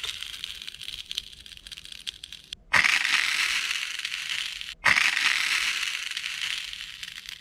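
Golden apple snail egg clusters being crushed under fingertips: a dense crackle of tiny eggs popping. It comes in runs that start sharply and fade, with fresh loud starts about two and a half seconds in and again near five seconds in.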